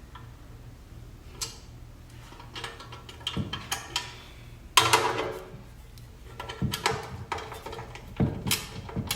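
Hand tools and metal intake parts being handled during assembly: scattered clicks, knocks and clinks over a low steady hum. The loudest is a ringing metallic clink about five seconds in.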